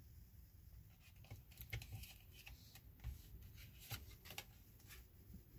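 Near silence, with a few faint soft clicks and rustles of tarot cards being handled.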